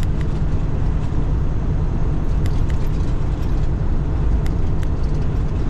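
Steady low drone of a semi truck's diesel engine and road noise heard inside the cab, with a few faint clicks.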